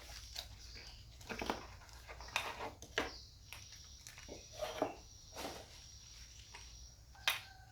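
Scattered light clicks and knocks of the brush cutter's new cylinder block and small engine parts being handled, the sharpest near the end.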